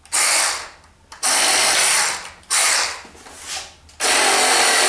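Small cordless battery-powered hacksaw cutting through a cedar limb, running in short bursts that stop and start about four times, the last and longest near the end.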